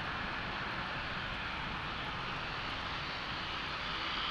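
Embraer E190 jet's twin GE CF34-10E turbofans at takeoff power during its takeoff roll, heard from a distance as a steady rushing noise.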